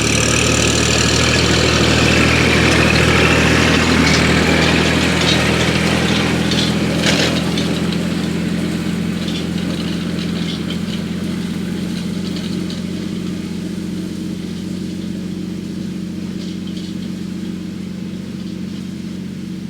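Kubota L3200 compact tractor's diesel engine running steadily under load, with clatter and a whine from the machinery over it, growing slowly fainter as it moves away. A single sharp knock about seven seconds in.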